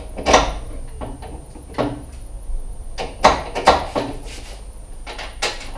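Sharp metallic clunks and knocks of hand work in a car's engine bay, from parts and tools being handled against metal. There are about five separate knocks, the loudest a close pair a little over three seconds in.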